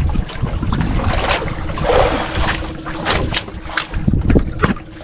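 Wind buffeting the microphone on a small outrigger fishing boat, with scattered knocks and water sounds as freshly caught squid are handled into a plastic basket. A faint steady hum runs underneath.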